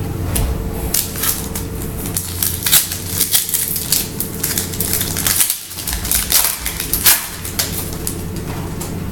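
Foil wrapper of a Donruss Optic baseball card pack crinkling and tearing as it is ripped open by hand: a rapid, dense crackle of sharp crinkles with a brief pause just past halfway.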